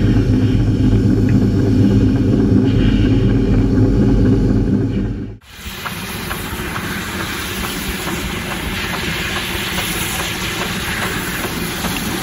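R12 steam rotary snowplow at work, heard close up as a loud, deep, steady drone. About five seconds in it cuts off sharply to a more distant, even rushing of the plow throwing snow.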